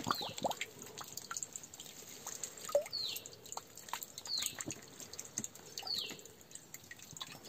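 Water dripping at a rock seep, with scattered light clicks and knocks as plastic bottles and stones are handled. A short high falling note recurs about every second and a half.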